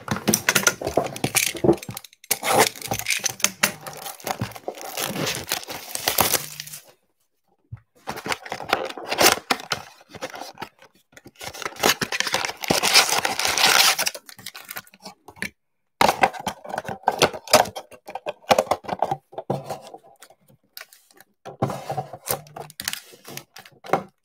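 Cardboard trading-card blaster box torn open by hand, then its plastic-wrapped card packs rustling and crinkling as they are pulled out and stacked. It comes in four bouts of ripping and handling with short pauses between them.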